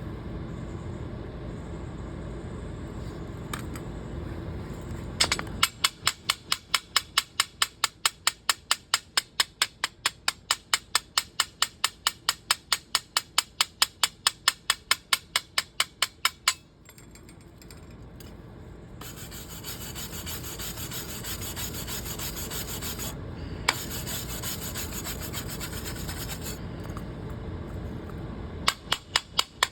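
A hand tool worked in quick, even strokes on a freshly welded steel hinge, about three to four sharp strokes a second, in two runs. Between the runs there is a steady hiss.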